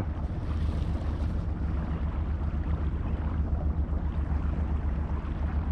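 Boat's outboard motor running steadily, a low even drone.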